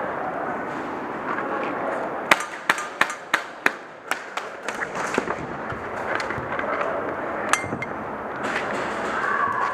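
Airsoft guns firing in an indoor arena: a quick string of sharp cracks, about three a second, for about three seconds, then a single crack later on, over a steady background din.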